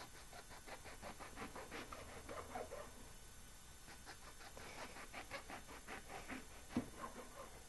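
Chef's knife slicing small eggplants into rounds on a wooden cutting board: a faint run of quick cuts, the blade tapping the board several times a second, with one sharper knock near the end.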